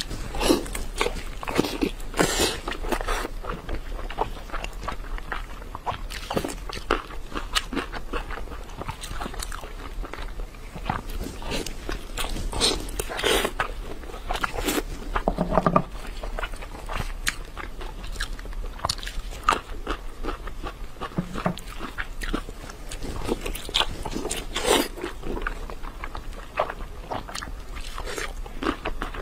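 Close-up eating sounds of a person biting into and chewing glazed braised ribs: wet smacking and sucking mouth noises with irregular sharp clicks of teeth on meat and bone.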